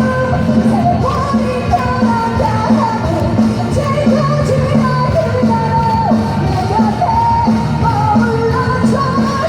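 Live pop-rock song played loudly over a sound system: a woman sings a belted melody over a band with a steady beat.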